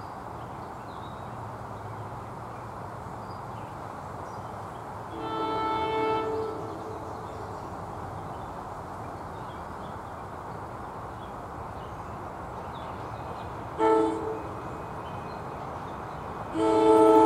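Approaching NJ Transit Arrow III electric multiple-unit train sounding its multi-note horn in the standard grade-crossing pattern. There is a long blast about five seconds in, a short blast near fourteen seconds, and a much louder long blast starting near the end as the train draws closer.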